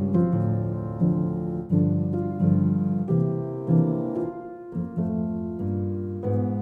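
Background piano music, with notes and chords struck every half second to a second.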